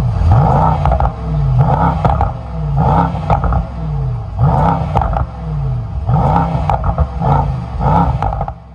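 The M177 twin-turbo 4.0-litre V8 of a 2023 Mercedes-AMG GT 63 S E-Performance is revved repeatedly in short throttle blips, about once a second. Each rev climbs quickly and then falls away.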